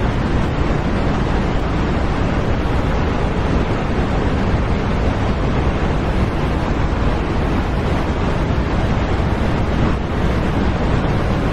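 A steady, loud rushing noise like static or surf, unchanging throughout, with no separate sounds in it.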